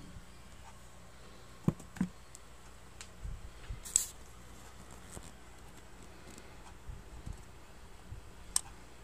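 Handling noise from the camera being moved: a few scattered sharp clicks and soft knocks over a steady faint hiss. The sharpest click comes about four seconds in.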